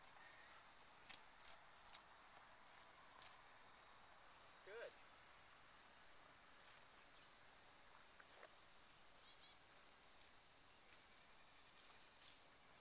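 Near silence: a faint steady high-pitched hiss with a few faint clicks, and one brief faint voice-like sound about five seconds in.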